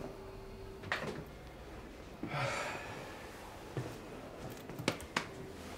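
Quiet room sounds of a person moving about: a few soft knocks and clicks, and a short breathy hiss about two and a half seconds in.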